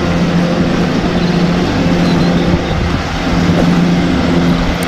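Diesel engine of a wheel loader fitted with a V-shaped snowplow, running steadily with a constant drone as the machine pushes through snow.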